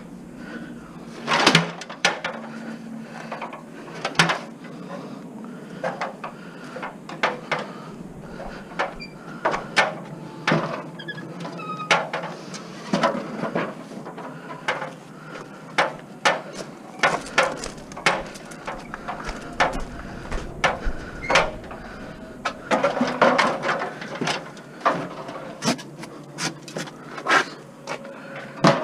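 Scrap items being handled and moved: irregular knocks, clunks and clatter, dozens of sharp hits spread throughout, with a busier run of them near the end.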